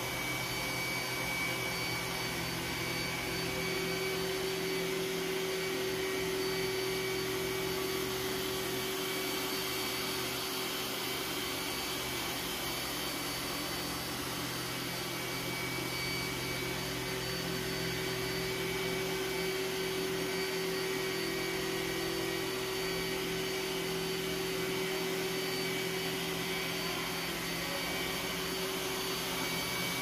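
iRobot Roomba s9 robot vacuum running on high-pile carpet: a steady, even drone from its suction motor and brushes, with a constant high whine over it.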